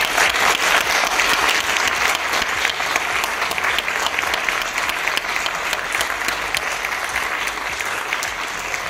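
Audience applause: many hands clapping in a dense patter, loudest at the start and slowly dying down.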